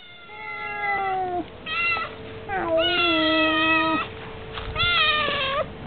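Adult cat meowing four times in long, drawn-out calls, each sliding slightly down in pitch. The third is the longest, and the second is the shortest.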